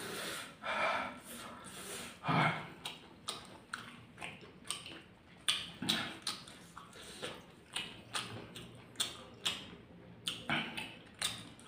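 Raw bird's eye chillies crunched and chewed close to the microphone, a string of irregular crisp clicks and crunches, with fingers rustling through loose chillies in a stone mortar. A couple of sharp breaths through the mouth near the start, from the heat of the chillies.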